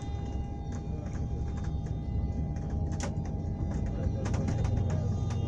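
A vehicle running steadily: a low rumble with a constant whine above it and a few short clicks.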